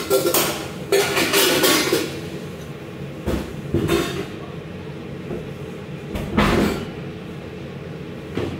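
Several loud bursts of clattering and knocking off to the side, about 1 to 2 seconds in, around 3 to 4 seconds and again past 6 seconds, over a steady background hum.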